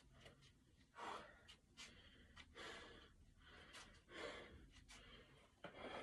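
A man breathing hard from exertion, faint, with several heavy breaths in and out about every second and a half, as during a set of squats.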